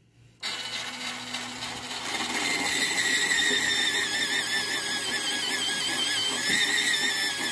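Electric pencil sharpener grinding a wooden pencil, starting about half a second in: a steady motor hum under a wavering high-pitched squeal from the cutter on the wood, getting louder about two seconds in.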